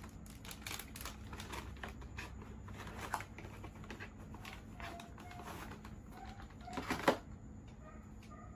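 Packaging rustling and clicking as a wireless gaming headset is worked out of its box insert by hand, with a louder crinkle about seven seconds in.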